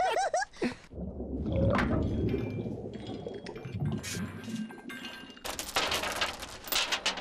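Anchor chain paying out over the side of a boat, its metal links clinking, becoming a dense, fast rattle near the end; a low rumble starts about a second in.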